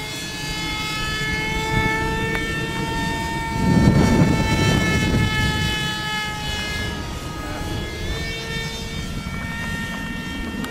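RC Mini Horten model flying wing's motor running steady and high-pitched as it flies past, the pitch wavering slightly. A rush of noise swells in about four seconds in and fades over the next two seconds.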